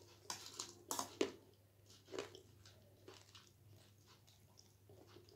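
A person chewing crunchy snack food close to the microphone, with a few sharp crunches in the first second and a half and softer chewing after.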